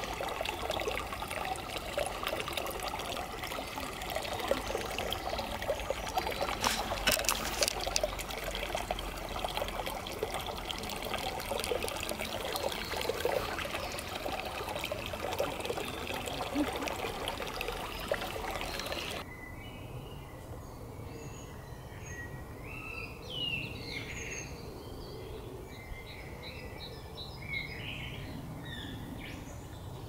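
Water dripping and trickling into a puddle, a dense run of small drops and splashes. About two-thirds of the way through it cuts off abruptly to quieter small-bird song: scattered high chirps and a short, evenly paced trill.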